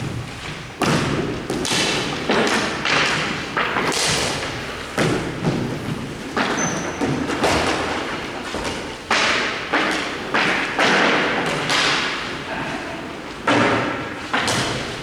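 Hockey play: a fast run of sharp thumps and cracks from sticks and pucks striking, about one to two a second, each dying away quickly.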